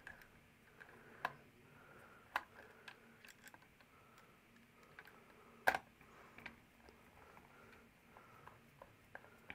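Faint, irregular clicks and ticks of a screwdriver tightening a contactor's screw terminals down on the wires, with one sharper click a little past halfway.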